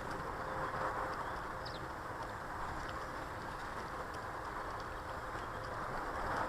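Steady outdoor background noise, with a few faint, short, high chirps from small garden birds scattered through it.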